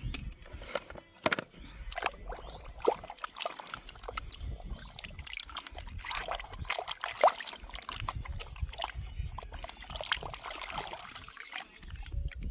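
Water sloshing and trickling, with irregular small clicks and knocks of plastic toys being handled and washed.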